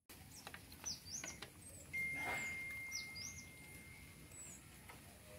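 Birds chirping: a few short, high, sweeping calls over faint outdoor background noise. A thin steady whistle-like tone runs for about two seconds in the middle.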